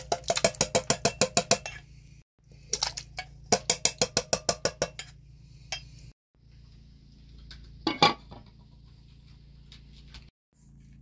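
A metal can of diced tomatoes being knocked and scraped empty over a stoneware slow-cooker crock: two quick runs of sharp metallic clicks, about eight to ten a second, over a low steady hum. About eight seconds in comes one louder clink, as the glass lid goes onto the slow cooker.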